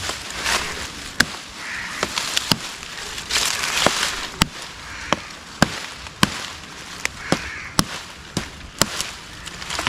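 A knife chopping at a bamboo pole's side branches: about nine sharp knocks at uneven intervals, with leafy rustling and scraping between the strokes.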